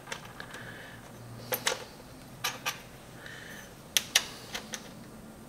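Small, sharp metal clicks, about four pairs of them, as a nut with a lock washer is turned by hand onto a bolt on a stainless steel table's support rail.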